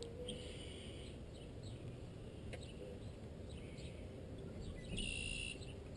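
Quiet outdoor background with faint bird chirps now and then, the clearest about five seconds in.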